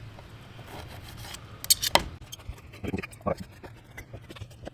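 A cooked steak being cut up into pieces: irregular clicks and scrapes of the blade, with a few sharper ticks a little under two seconds in and again around three seconds.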